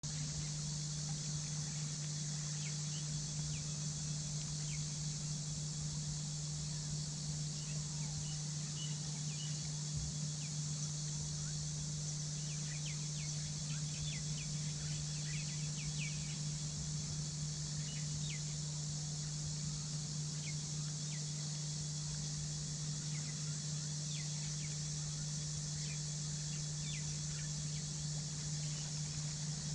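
Steady outdoor wetland ambience: a constant low hum and high hiss, with many short, high-pitched chirps or plinks scattered through, thickest in the middle.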